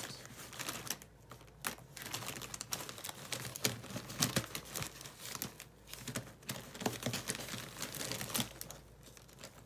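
Hands rummaging among Mildliner highlighter pens: repeated light clicks of plastic pens knocking together, with rustling and crinkling of a fabric case.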